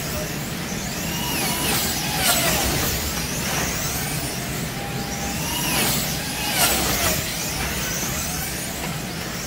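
Wing-class slot cars racing around a large routed track, their small electric motors whining high and rising then falling in pitch over and over as the cars accelerate down the straights and brake into the turns.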